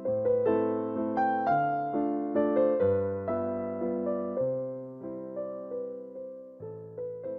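Background music: a gentle piano piece, with struck notes that fade away, played in chords under a simple melody and growing softer toward the end.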